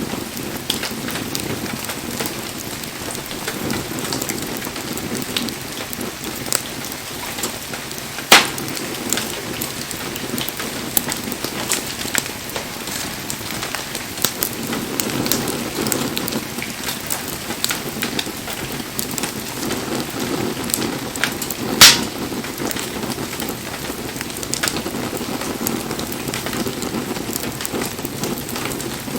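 Wood bonfire burning: a steady rush of flames with constant small crackles, and two sharp, loud pops from the burning wood, one about eight seconds in and one about twenty-two seconds in.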